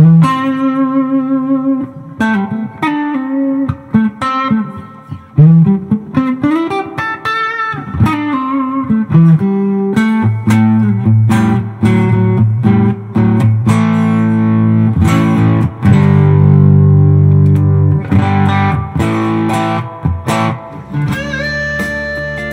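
Electric guitar, a Fender Telecaster, playing lead lines with string bends and vibrato through a lightly overdriven Mooer Rumble Drive sandwiched between an Xotic SP Compressor and an Xotic EP Booster, into a Fender '65 Deluxe Reverb reissue amp. It opens on a held, wavering note, then runs picked phrases, and about halfway through settles into longer sustained low notes.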